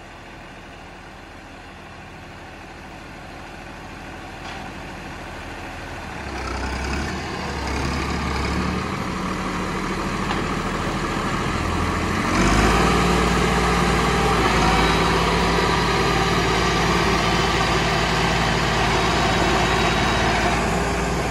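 Diesel tractor engine pulling a trolley loaded with wet soil, under load. It grows steadily louder as it comes closer and gets suddenly louder about halfway through, then runs on steadily.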